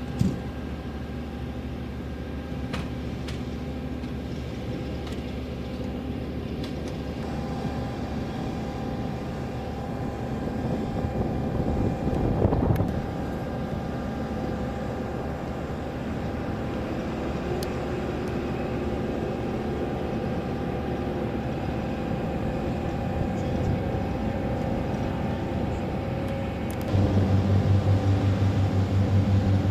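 Jet engine noise on an airfield flight line: a steady turbine whine of several held tones over a broad rushing noise. It swells briefly about twelve seconds in, and near the end it steps up suddenly to a louder level with a strong low hum.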